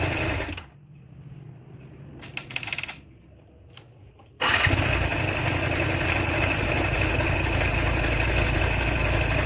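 Yamaha R15 V3's single-cylinder engine running with a crackling noise that the mechanic suspects comes from something broken inside. The running sound drops away under a second in, leaving a few light clicks. It returns abruptly about four and a half seconds in.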